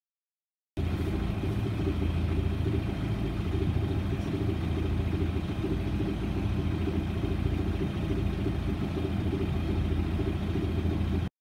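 A boat's engine running steadily under way, with a hiss over it. It starts about a second in and cuts off abruptly near the end.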